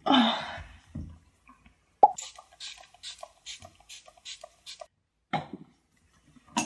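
MAC Fix+ setting spray pump-misted onto the face: a quick run of about ten short hissing sprays, about four a second, starting about two seconds in. A brief rustle comes just before.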